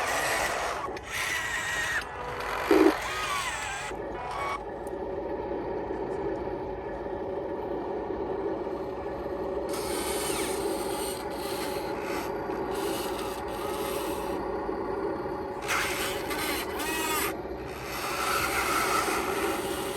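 Small electric motors and gearboxes of radio-controlled construction models whirring steadily, with gritty scraping and rubbing that comes and goes.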